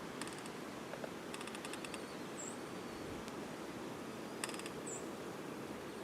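Steady blizzard wind hiss, with a small bird giving three quick rattling calls and two short high chirps.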